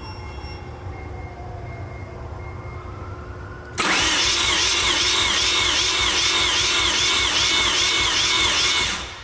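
Mazda RX-7 FD's 13B rotary engine being cranked by its starter with the spark plugs out for a compression test. It starts about four seconds in and stops just before the end, the starter whine rising and falling evenly about two and a half times a second as the rotor faces come up on compression. The cranking is slow, about 147 rpm, which the owner puts down to a bad starter.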